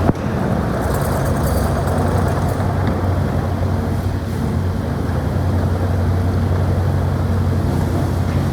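Diesel engine of a Kubota KX080-4 midi-excavator running steadily, with a short click at the very start.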